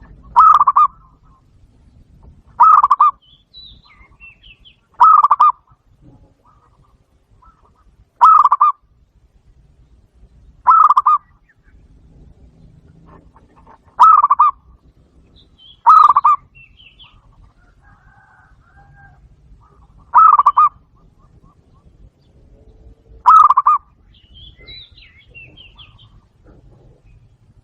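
Zebra dove calling: nine short, loud cooing phrases at uneven gaps of two to four seconds. Faint higher chirps of other birds come between them.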